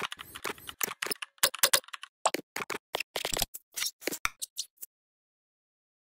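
Computer keyboard typing sound effect: an irregular run of sharp key clicks that stops about five seconds in.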